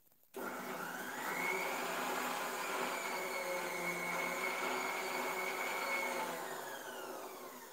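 Electric mixer grinder grinding green chutney: the motor spins up with a rising whine about a second in, runs steadily for about five seconds, then is switched off and winds down with a falling whine.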